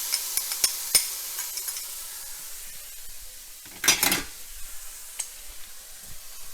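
Minced garlic and crushed red pepper sizzling in a little hot vegetable oil in a pan, stirred with a utensil that clicks against the pan. The sizzle fades gradually, and there is one louder scrape about four seconds in.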